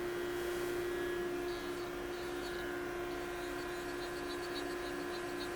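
Steady hum of a CNC surface grinder with its grinding spindle running. From about a second and a half in, faint uneven high ticking and a pulsing lower tone join it as an axis is jogged with the hand wheel.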